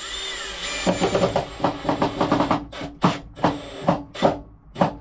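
A burst of music with drum hits that starts and stops abruptly, with a string of strong beats in its second half.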